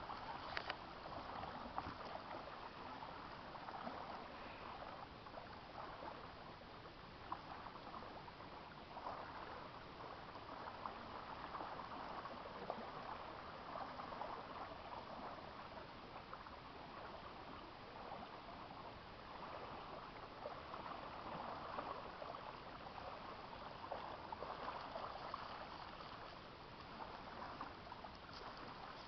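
Small lake waves lapping and washing on a sandy shore, a steady watery wash that swells and eases every few seconds, with a few small splashes.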